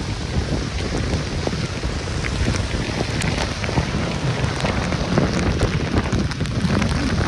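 Hurricane wind buffeting the microphone with a deep rumble, over heavy rain, with many scattered sharp taps throughout.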